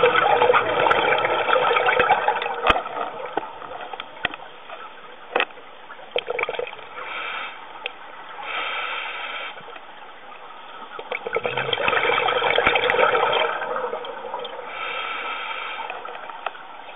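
Scuba breathing heard underwater through a regulator: long gurgling rushes of exhaled bubbles at the start and again around twelve seconds, with softer hissing inhalations through the demand valve between them, and a few sharp clicks.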